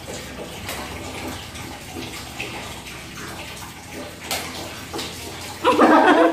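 Steady rushing noise like water running, then a person's loud voice breaking in about a second before the end.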